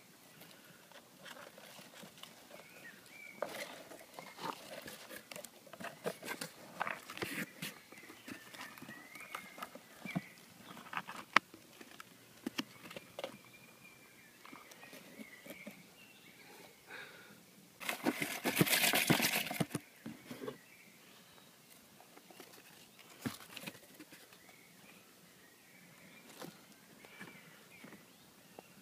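Mice scrabbling and scratching about in a cardboard box lined with paper and hay: irregular small scratches and taps on the cardboard, with a louder rustling scrape of the box for about two seconds around two-thirds of the way through.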